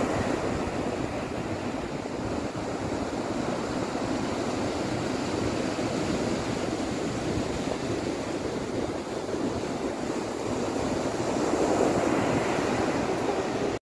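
Ocean surf breaking and washing up the beach: a steady rush that swells again near the end, then cuts off suddenly.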